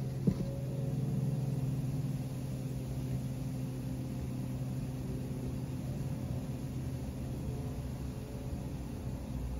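A steady low mechanical hum, with a single sharp click about a third of a second in.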